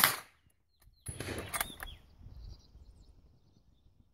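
A Krag-Jorgensen bolt-action rifle shot right at the start, dying away within half a second. About a second in comes about a second of clicking and rattling, the bolt being worked to chamber the next round.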